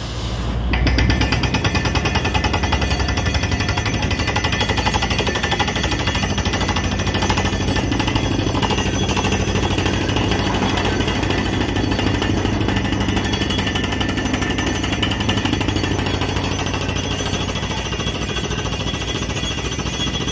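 Borewell rig drilling with a down-the-hole air hammer: a fast, steady pounding as the bit hammers into rock, over the rig's engine and compressor, with compressed air blasting cuttings out of the hole. It comes up to full within the first second and holds steady after that.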